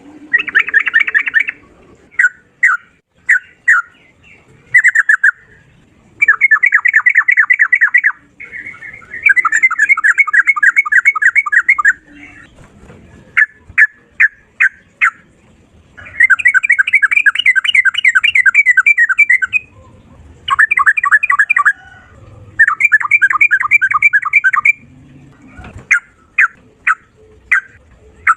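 Sooty-headed bulbul (trucukan) singing loudly in rapid-fire 'ropel' runs: five fast chattering strings of notes, each two to four seconds long, with short runs of separate single notes between them.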